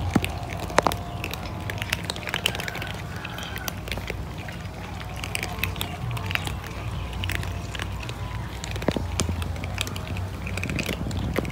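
Several cats crunching dry kibble: a dense, irregular scatter of small crisp clicks over a steady low hum.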